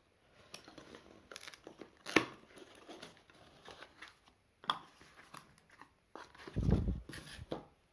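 Utility knife slitting packing tape on a cardboard box and the cardboard flaps being pulled open: crackling tape and scraping cardboard, with sharp clicks about two seconds in and near five seconds. A dull thump near the end is the loudest sound.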